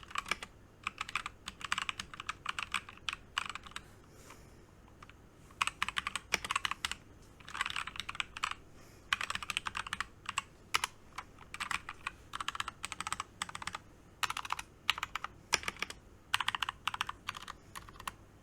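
Typing on a mechanical keyboard with brown switches and freshly fitted keycaps: quick runs of key clicks in bursts, with a short pause about four seconds in.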